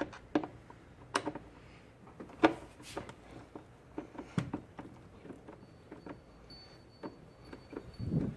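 Irregular light clicks and knocks of parts and tools being handled during an airbox install, with a duller, lower knock near the end.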